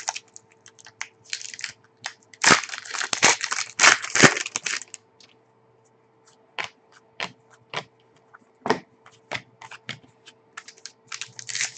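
A foil trading-card pack (Panini Contenders hockey) torn open and crinkled by hand, then the cards slid out and flicked through. A dense run of rustling about two to five seconds in, then scattered short clicks and rustles.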